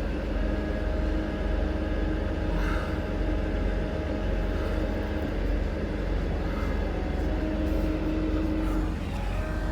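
Car driving slowly, heard from inside the cabin: a steady engine hum over low road rumble.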